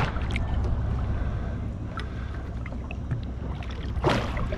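Wind rumbling on the microphone and water lapping against the hull of a drifting boat, with a short rush of water about four seconds in.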